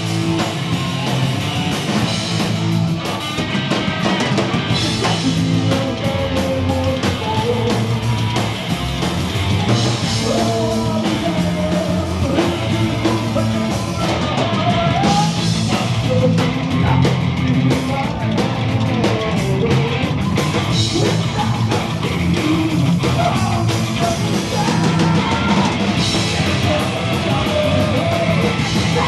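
A rock band playing live, loud and continuous: a drum kit, electric guitar and bass under a sung lead vocal.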